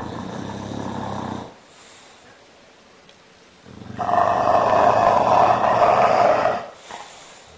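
Bulldog snoring: two loud, rasping breaths, the second one longer and louder, lasting about three seconds.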